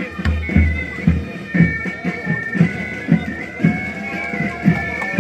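Military pipe band playing a march: bagpipe chanters carry the melody over a steady drum beat of about two strokes a second.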